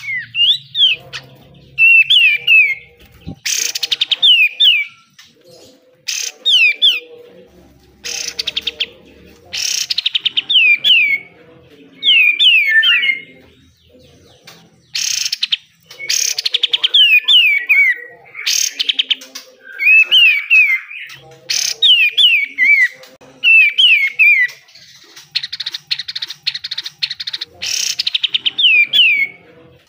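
Kapas tembak (katem) songbird in full song: runs of quick, sharply falling whistled notes, cut through again and again by loud, harsh, very rapid rattling bursts, the 'besetan' that bird keepers prize.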